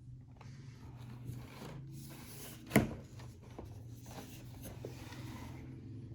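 Sneaker packaging being handled, rustling and scraping, with one sharp knock about halfway through.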